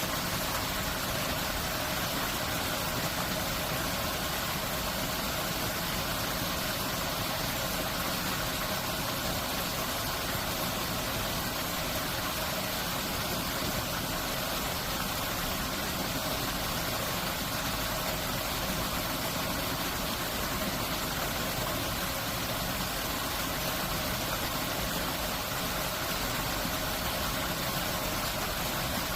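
Water rushing through the arches of the Hwahongmun floodgate, a steady unbroken noise.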